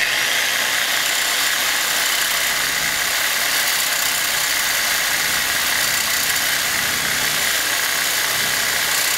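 Corded Skil 8.5-amp electric saw running at its fourth speed setting, a bimetal blade cutting into the steel shell of an air-conditioner compressor: a steady, harsh cutting noise with a constant high whine.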